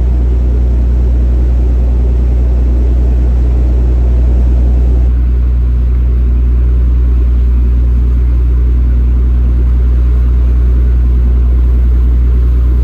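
A sightseeing boat's engine running with a steady low drone, with an even hiss over it. The upper hiss eases slightly about five seconds in.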